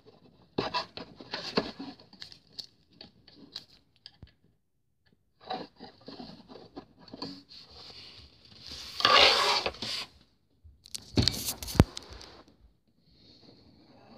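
Plastic packaging rustling, crinkling and scraping as a plastic model airliner is unwrapped and lifted out of its moulded plastic tray. The rustles come in irregular spells, with a louder stretch about nine seconds in and a few sharp clicks and knocks soon after.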